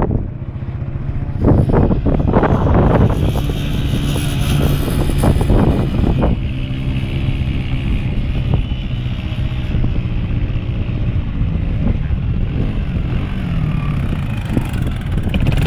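Quad bike (ATV) engine running steadily, with wind gusting on the microphone a couple of seconds in and again around five seconds.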